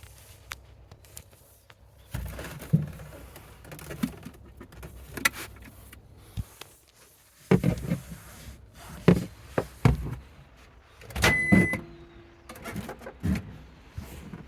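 A run of separate knocks and clunks of things being handled, with a short electronic beep about eleven seconds in.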